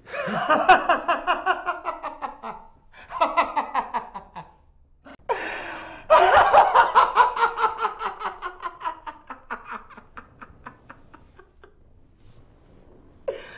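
A man's loud, rapid laughter in bouts: two bursts, a sharp breath in, then a long laugh whose pulses slow and fade away.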